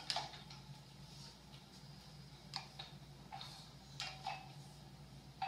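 Light, irregular taps and clicks as a toddler climbs from a stool onto a hard kitchen countertop among cans, over a faint steady hum.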